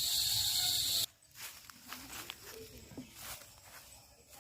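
A steady, high chorus of insects chirring cuts off abruptly about a second in. Faint scattered taps and rustles follow.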